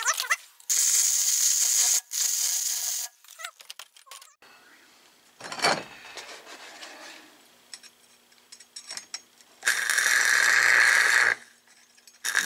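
Stick-welding arc at 70 amps, crackling and hissing in three runs of one to one and a half seconds each, each stopping abruptly. The last run, about ten seconds in, cuts off as the electrode sticks to the work.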